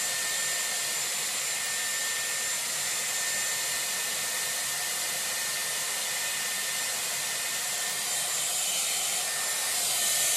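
Dyson Airwrap with its round brush attachment blowing air through a section of hair: a steady rushing hiss with a thin high motor whine, a little louder near the end.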